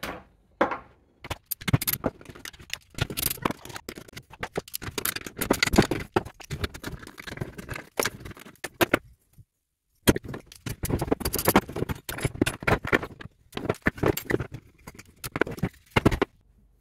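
Hands dismantling a plastic EV-battery contactor block: a busy run of clicks, rattles and scrapes of plastic housing pieces, screws and small metal parts being worked loose and handled, with a brief break about nine seconds in.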